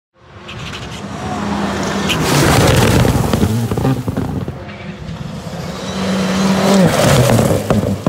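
Rally car engine revving hard as the car slides by on a loose gravel stage, its pitch holding then stepping as the driver shifts gears, with a hiss of gravel and tyres on loose surface. It is loudest about two and a half seconds in and again near seven seconds.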